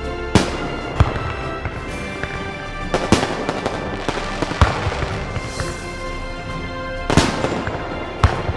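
Fireworks going off in several loud, irregularly spaced bangs over steady background music.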